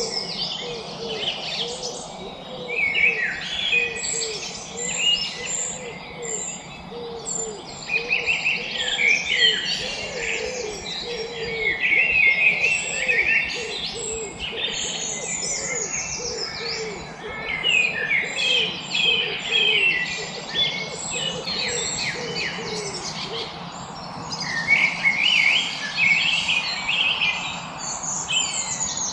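Many songbirds chirping and singing at once in a dense, overlapping chorus of quick high notes and trills. A lower call repeats steadily underneath for most of the stretch.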